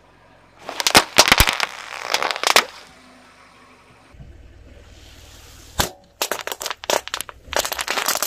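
Small firecrackers going off in two rapid crackling strings of sharp pops, with a single loud crack between them. A low rumble comes in underneath about halfway through.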